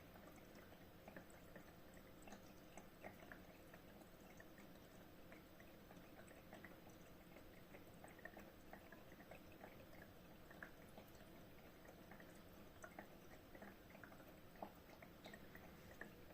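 Very faint, irregular small drips and ticks of water over a low steady hum: a steam fireplace's water reservoir and mist maker running.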